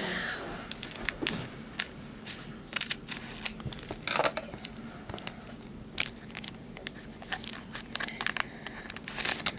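Scissors snipping open the top of a foil Pokémon trading-card booster pack, and the crinkly wrapper being handled and pulled apart: a run of short, irregular crackles and snips, busiest near the end.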